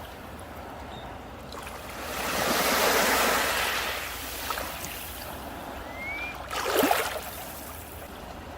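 Sea waves washing onto a beach: one wave swells in about two to three seconds in and drains away, and a sharper splash of surf comes near seven seconds. A short rising whistle sounds just before the splash.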